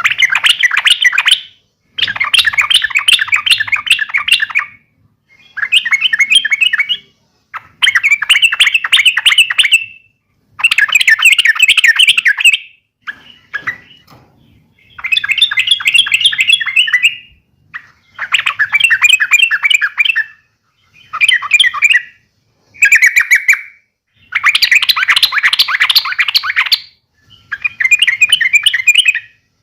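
Yellow-vented bulbul (trucuk) singing in repeated bursts of rapid, bubbling chatter, each phrase one to three seconds long with short pauses between. This is the agitated 'fighting' song of a young trucuk, used to provoke other trucuk into answering.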